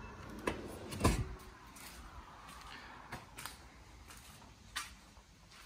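A few light, scattered knocks and clicks, spread unevenly over several seconds, with quiet room tone between them.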